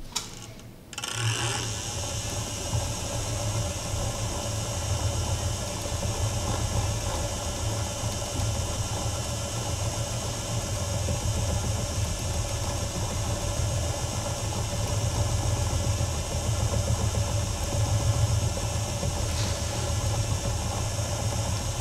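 Plyology electric spinning wheel switching on about a second in, then running steadily: its motor-driven flyer and bobbin spinning with a little hum.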